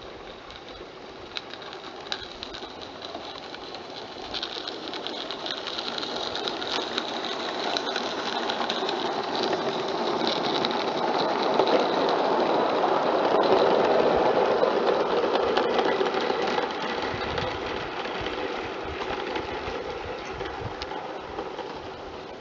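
A garden-scale live-steam model locomotive hauling coaches runs past on its track. The sound builds to its loudest about 13 to 14 seconds in, then fades, with scattered sharp clicks throughout.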